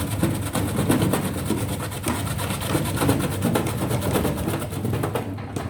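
Porang (konjac tuber) slicing machine running: a steady motor hum with a rapid, even ticking.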